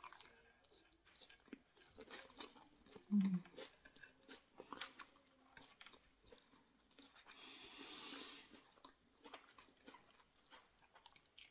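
Close-up mouth sounds of biting and chewing grilled skewered Filipino barbecue meat: faint, wet chewing clicks. There is a brief low hum about three seconds in and a soft breathy rush around eight seconds.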